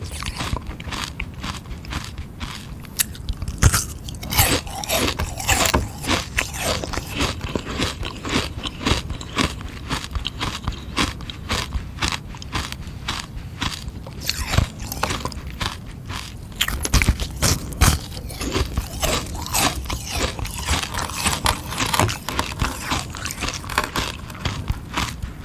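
Close-miked biting and chewing of a frozen sugar-water ice pop, a dense run of sharp, irregular crunches and crackles of ice breaking between the teeth.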